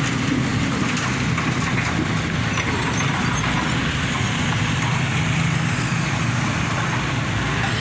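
Large diesel engine running steadily at an even speed.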